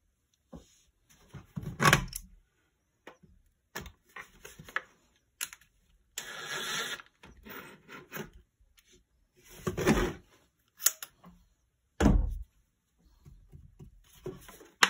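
Plastic housing of an electric fence controller being handled and worked apart with hand tools: a run of knocks and clatters, a scrape lasting about a second near the middle, and a heavy thud about three seconds before the end.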